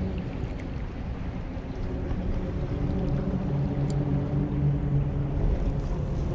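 An engine drones steadily over a low rumbling noise, its pitch dropping a little about two seconds in.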